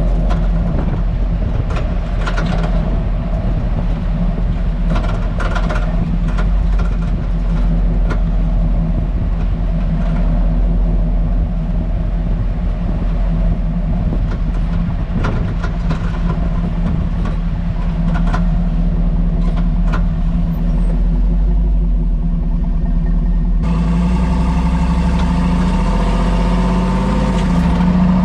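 Hummer H2 heard from under the car while driving slowly: a steady drivetrain and road rumble with irregular sharp clicks and knocks. This is the rattling, tapping noise from the rear suspension whose cause is unknown, and which new springs, shock absorbers, spring seats and sway-bar links have not cured. About three-quarters of the way in the sound turns to a steadier hum with more distinct tones and fewer clicks.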